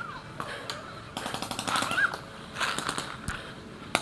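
Paintball markers firing in rapid strings of sharp pops, one burst about a second in and another near three seconds, with a single sharp crack at the end.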